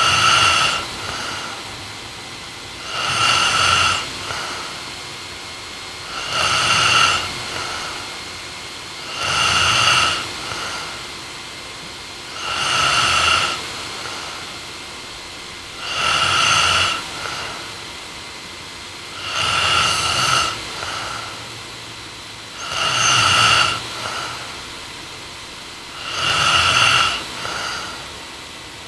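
A woman snoring in her sleep, steady and regular: nine snores evenly spaced about every three seconds, each about a second long and followed by a short, fainter tail.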